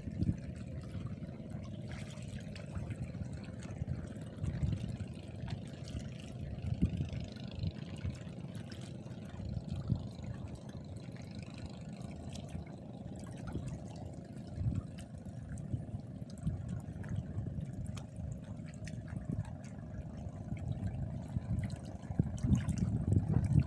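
Water lapping and sloshing, with irregular low knocks throughout.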